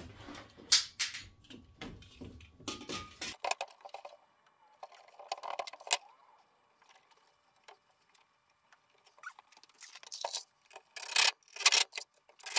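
Handling noise as a wooden board is shifted and set into position on a workbench: irregular knocks, clicks and scrapes, loudest in a cluster near the end.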